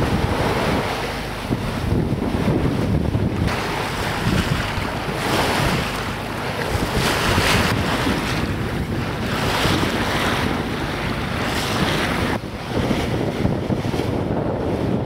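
Wind buffeting the microphone over the wash of water along the hull of a sailing boat under way, swelling and easing in gusts.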